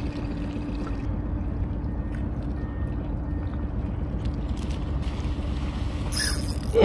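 Steady low rumble with a constant low hum, and a short hiss near the end.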